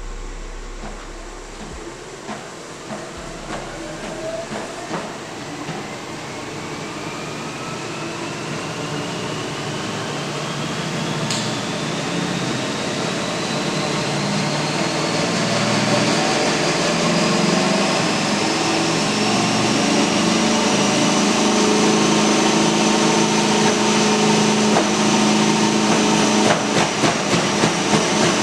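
Treadmill motor whine rising steadily in pitch as the belt speeds up, levelling off after about twenty seconds, with rhythmic footfalls thudding on the belt near the end.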